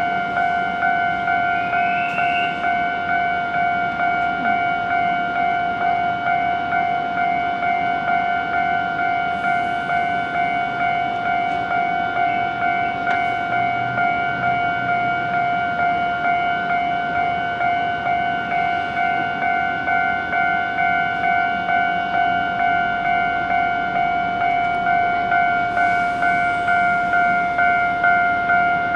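Japanese railway level-crossing warning bell ringing without a break in a fast, even repeat, the signal that the barriers are down for an approaching train.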